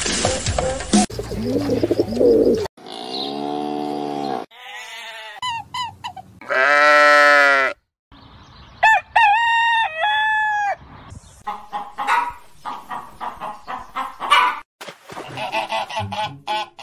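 A series of farm-animal sound effects, one call after another. Among them a rooster crows about nine to eleven seconds in, and hens cluck repeatedly near the end.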